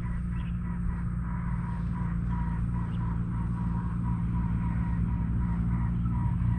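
A steady engine drone that slowly gets louder.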